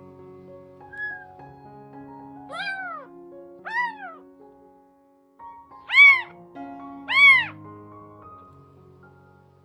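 A 15-day-old kitten meowing four times, each a thin cry that rises and falls in pitch, the last two loudest. Soft piano music plays underneath.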